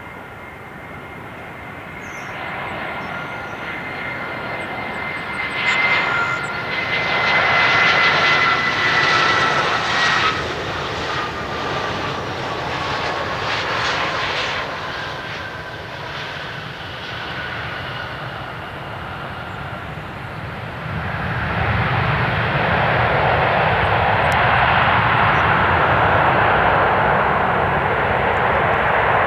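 Airbus A320's turbofan engines on approach and passing by, a whine that slowly falls in pitch, loudest about a third of the way in. About two-thirds through, after touchdown, a sustained rushing roar comes up: reverse thrust slowing the jet on its landing roll.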